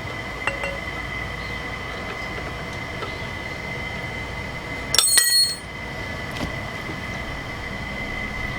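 Steel jack parts being handled: a few light clicks, then about five seconds in one loud metallic clink that rings briefly, over a steady high-pitched background tone.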